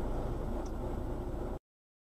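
Steady low rumble of a car running, heard inside its cabin. It cuts off abruptly about one and a half seconds in.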